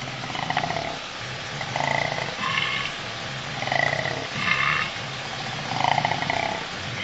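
Koala bellowing: a steady low pulsing drone overlaid with a rasping call that repeats about every second, six or so times.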